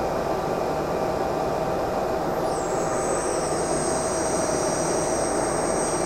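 The steady rushing noise of a 1.5 kW microwave air-plasma torch and its exhaust system running at full power. About two and a half seconds in, a high whine slides down in pitch and then holds steady.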